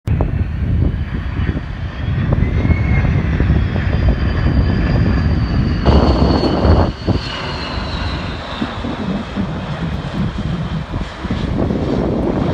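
Boeing 767 jet landing: a deep engine rumble under thin high whining tones that slowly fall in pitch as it passes. Wind rumbles on the microphone.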